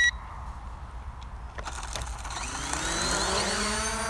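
A short electronic beep right at the start. Then the quadcopter's motors spin up: a hiss builds from about a second and a half in, followed by a multi-toned whine that rises in pitch and levels off near the end.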